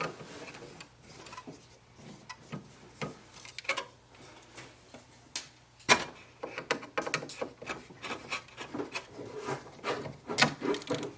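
Screwdriver backing out small screws that hold the print head assembly of an Epson WorkForce WF-7310 inkjet printer: irregular small clicks, ticks and scraping of metal on plastic, with one sharper click about six seconds in.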